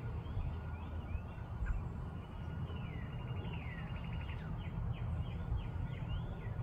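Songbirds calling: many short chirps that sweep up and down, with a fast trill about three seconds in, over a steady low rumble.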